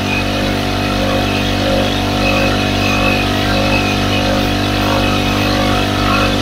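Small engine of a power crop sprayer running at a steady speed while it sprays pesticide.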